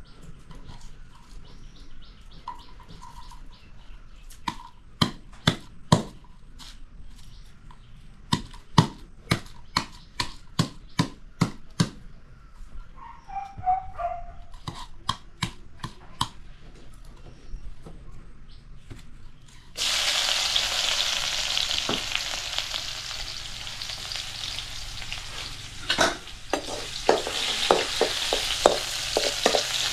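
Clusters of sharp knocks, then about two-thirds through a sudden loud sizzle as food goes into hot oil. The sizzle keeps going, with a utensil knocking against the pan during stirring.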